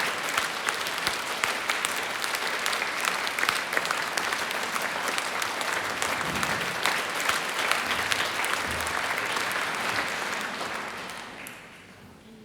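Audience applauding: dense, even clapping that fades away near the end.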